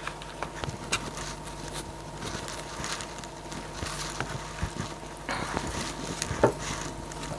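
Soft rustling and small clicks of a sheer organza pouch being opened and a deck of oracle cards slid out and handled, with a denser rustle about five seconds in and a sharp tap shortly after. A faint steady hum lies underneath.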